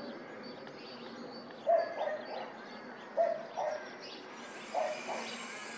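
Three short animal calls about a second and a half apart, each a pair of quick notes, over a steady background hiss.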